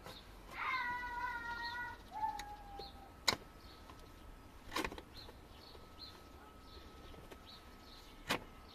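Oil filter housing cap on a Mercedes ML320 CDI engine being screwed down tight by hand: a drawn-out squeak about a second in and a shorter, lower one just after, then three sharp clicks spread over the next few seconds.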